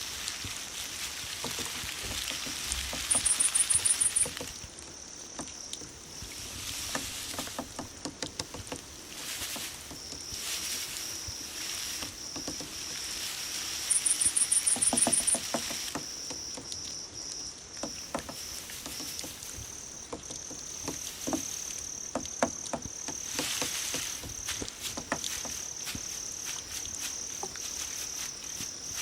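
Grass insects calling: a steady, high-pitched thin trill runs throughout, while loud, evenly pulsed chirp phrases about a second and a half long come twice, a few seconds in and about halfway. Scattered clicks and short rustles sound underneath.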